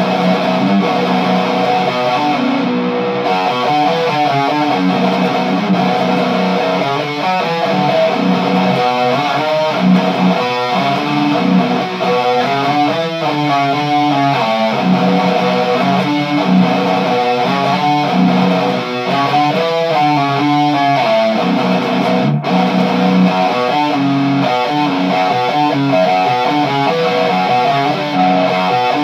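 Electric guitar with an EMG active bridge pickup played through a Peavey 6505 amplifier: a continuous run of chords and single notes, with one very brief break about three-quarters of the way through.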